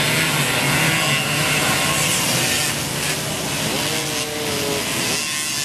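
Mobylette mopeds' small two-stroke engines buzzing loudly at high revs, the sound easing slightly about halfway through.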